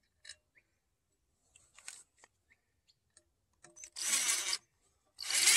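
Cordless drill driving a screw through a steel guide plate into the end of a log, after a few light clicks of handling: a short burst about four seconds in, then a longer, loud run near the end.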